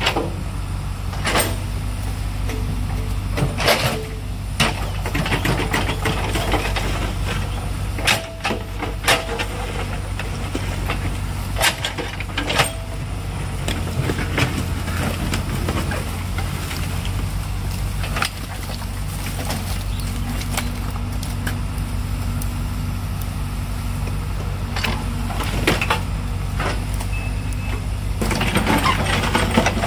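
Backhoe loader's diesel engine running steadily while loading rubbish into a dump truck, with sharp knocks and clanks now and then.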